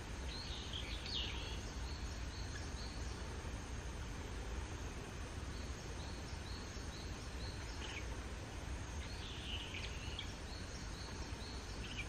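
Steady low outdoor rumble with small birds chirping in the background: a short burst of high chirps about a second in and another near the end, and runs of brief high notes in between.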